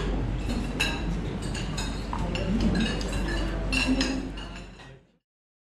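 Forks, knives and spoons clinking and scraping on china plates at a meal table, many short light clinks, over a low murmur of voices. The sound fades out about five seconds in.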